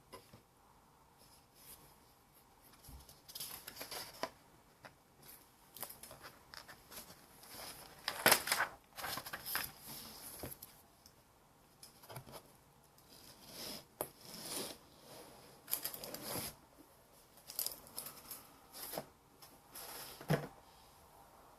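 Irregular short rustles and scrapes of paper being handled, some louder than others, with quiet gaps between.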